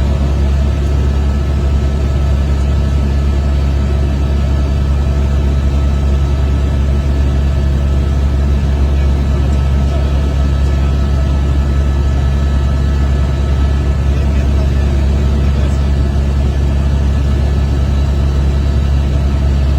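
Helicopter cabin noise: the engine and rotor run as a loud, steady low drone with a faint constant whine on top.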